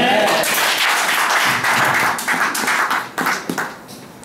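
A small congregation applauding, a dense patter of hand claps that starts at once and thins out about three and a half seconds in.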